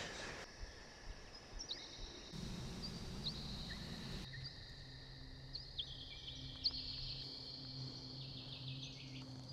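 Faint woodland ambience with scattered short, high bird chirps.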